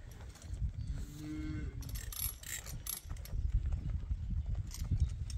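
A cow moos once, a single call of about a second starting about a second in, over steady wind rumble on the microphone.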